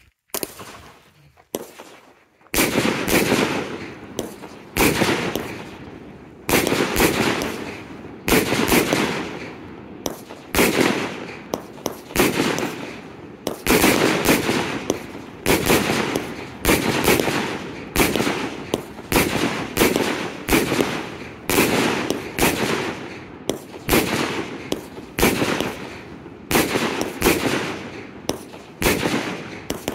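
Thunder King 100-shot firework cake firing: a loud bang about every second, sometimes two close together, each dying away with echo. A single shot comes at the start, then the steady run begins about two and a half seconds in.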